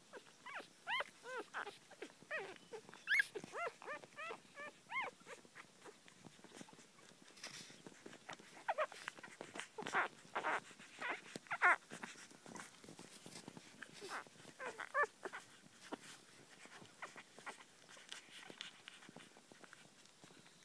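Newborn puppies squeaking and whimpering while they jostle to nurse: short, high-pitched squeals that come in clusters, with quieter stretches between.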